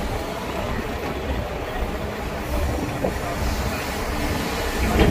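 Heavy diesel machinery running with a steady low rumble, with a couple of short knocks, the loudest near the end.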